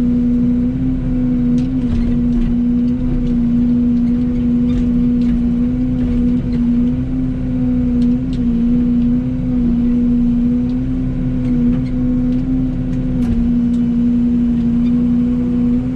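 Excavator running steadily under work, its engine and hydraulics giving a constant hum that dips slightly now and then as the controls are worked. A few faint knocks sound here and there.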